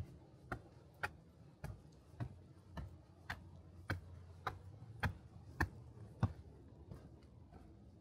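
Footsteps walking steadily on a forest trail, just under two steps a second, each a short crunch with a soft thud; the last clear step comes about six seconds in.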